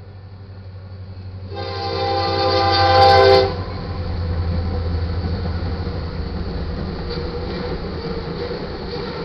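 Diesel-electric freight locomotives, an EMD SD70MAC leading SD70ACe units, sound their air horn in one chord-like blast of about two seconds, starting about a second and a half in and cutting off abruptly. Beneath it the low engine rumble grows louder as the train draws near, then carries on as the locomotives and cars pass.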